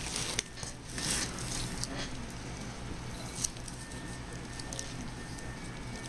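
Plastic wrapping and foam packing rustling and crinkling as printer parts are handled, with a few light clicks.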